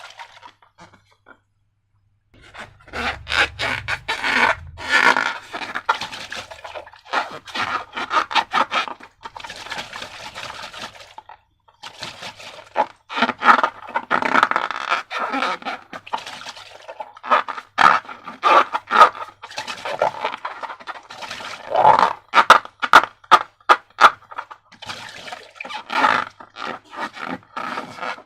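Slime being mixed and worked by hand, with scraping against its container and rapid sticky clicks and crackles. It starts about two and a half seconds in and goes on in uneven bursts.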